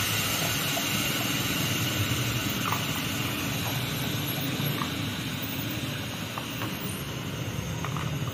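Steady drone of car-wash machinery with a constant hiss over it, a few faint ticks, easing slightly in level after about six seconds.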